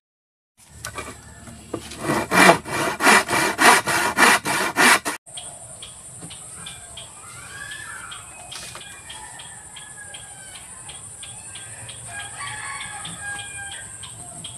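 Handsaw cutting through a wooden plank in quick even strokes, about two to three a second. After a cut, a steady high-pitched hiss with a rooster crowing and light taps of a hand tool on wood.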